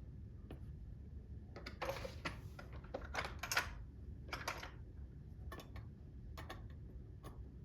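Small metal clock parts clicking and clattering under the fingers while the movement of a cuckoo clock is put back together and its fasteners fitted: a run of sharp irregular clicks, busiest a couple of seconds in.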